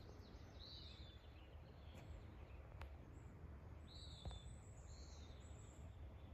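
Faint bird calls in near silence: two short arched calls, about a second in and again about four seconds in, with fainter higher calls between, over a low outdoor rumble.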